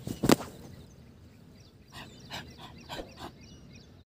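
A person thrown over lands on a thin mattress laid on the ground with one sharp thud, followed by a few fainter knocks and scuffs as the bodies settle on the mat.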